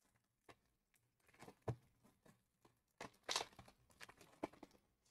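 Foil wrapper of a Pokémon card booster pack being handled and torn open: faint, irregular crinkles and crackles, loudest about three seconds in.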